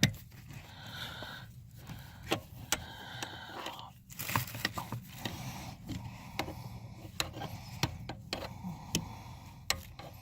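Scattered clicks, taps and scraping of hands handling parts at close quarters under a car's dashboard while a brake light switch is being fitted, with one loud click at the very start.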